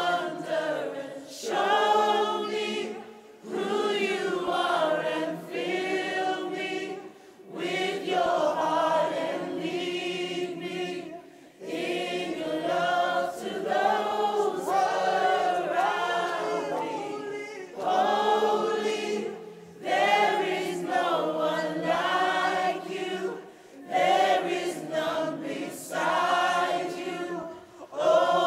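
Group of voices singing a worship song together, like a choir, in sustained phrases of a few seconds broken by short pauses.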